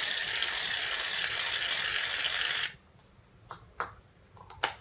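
Aerosol can of shaving foam spraying in a steady hiss that cuts off suddenly about two and a half seconds in, followed by a few light clicks and taps.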